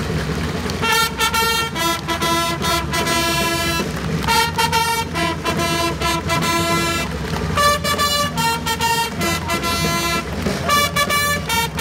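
A loud, bright wind-instrument melody in short phrases, the notes stepping up and down and breaking off with short pauses, over a continuous low rumble.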